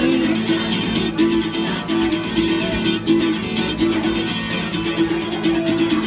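Acoustic guitar strummed in a steady, driving rhythm, a repeating chord pattern played as an instrumental passage without singing.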